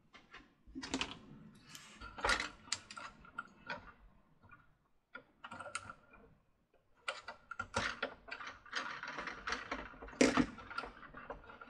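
Scattered small clicks and taps as a Mr. Christmas carousel's plastic rotor assembly and wires are handled and worked with tweezers during repair, with a quiet gap about halfway.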